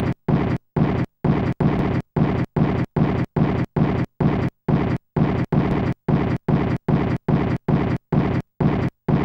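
Dense noise chopped into short bursts that start and stop abruptly, about two to three a second with silence between, strongest in the bass.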